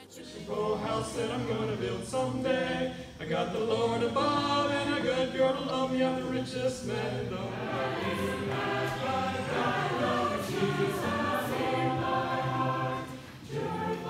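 Mixed choir of men and women singing a cappella, many voices together, with a brief break between phrases near the end.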